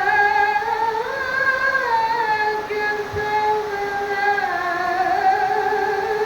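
A solo singer's high voice holding long, wavering notes that slide from pitch to pitch in an ornamented line, with no drum accompaniment.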